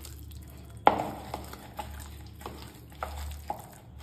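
Hands squishing and kneading pieces of rohu fish in a plastic bowl, working a wet spice marinade with gram flour and rice flour into them, with irregular wet squelches and a sharper knock about a second in.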